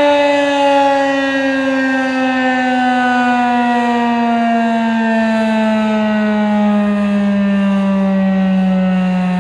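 Federal Signal 2001-SRN outdoor warning siren sounding a single loud tone whose pitch falls slowly and steadily as it winds down at the end of its alert signal.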